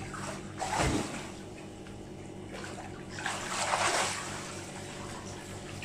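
Swimming-pool water splashing and sloshing as people move through it and climb the ladder out, with two louder splashes: about a second in and again around three to four seconds in.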